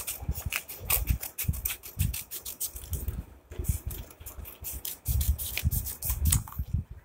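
Scissors snipping through a folded sheet of paper, a quick irregular run of snips with the paper rustling, over dull low bumps from handling on the table.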